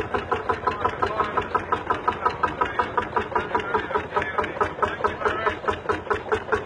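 Vintage single-cylinder tractor engine running with a slow, even chug of about five beats a second.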